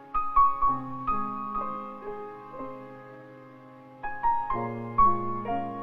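Background piano music: notes and chords struck and left to fade, with clusters of notes near the start and again about four seconds in, and a quieter stretch between.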